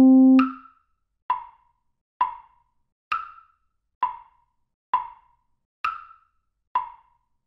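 Metronome clicking steadily at 66 beats a minute in 3/4, with eight clicks in all and a higher, accented click on each downbeat, three times. A held concert C note ends at the first accented click, and after it the clicks sound alone.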